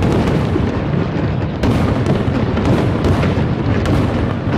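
Aerial fireworks display in a dense barrage: many overlapping booms and crackling bursts with no gaps between them. A sharper burst comes about one and a half seconds in and another near the end.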